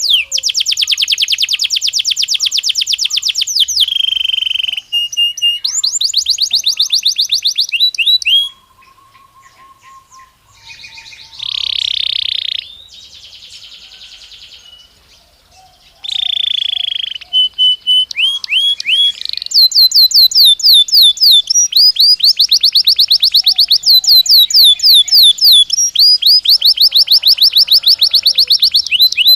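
Belgian canary singing in rapid rolling trills of fast repeated pitch-sweeping notes. Partway through, the song drops to a quieter pause holding one short loud buzzy phrase, then the fast trills start again and carry on.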